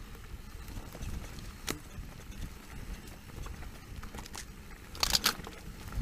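Electric mountain bike descending a bumpy dirt-and-grass trail: low wind rumble on the microphone with scattered rattles and knocks from the bike over the ground, and a louder burst of clattering about five seconds in.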